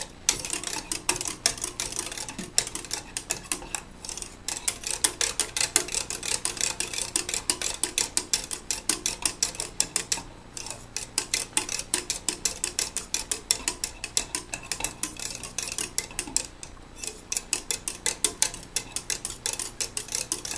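Wire whisk beating a liquid in a pot, its wires clicking rapidly against the pot's sides at several strokes a second, with a few short pauses.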